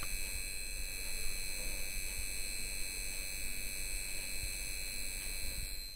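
Electrical buzz of a bare light bulb: a steady, high, many-toned hum over a low crackle.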